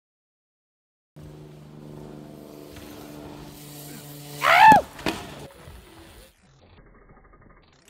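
A person's short whoop that rises and falls in pitch, cheering a BMX rider's flip off a dirt jump, over a steady low hum that starts after about a second of silence.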